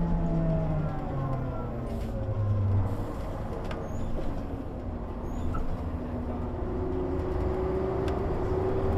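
MAN NG 312 articulated bus running. Its engine note falls in steps over the first three seconds, then a whine slowly rises from about seven seconds in.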